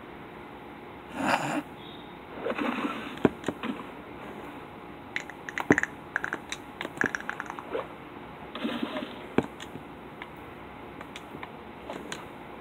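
Scattered light clicks and taps, some in quick little clusters, with a few short rustling noises in between.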